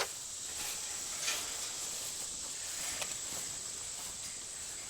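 Outdoor rural ambience: a steady, high-pitched chirring of insects, with a couple of faint ticks or rustles about a second in and around three seconds.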